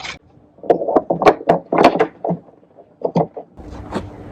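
LED headlight bulb being handled and twisted into a plastic headlight housing: a quick, irregular string of sharp plastic clicks and knocks. A low steady hum starts near the end.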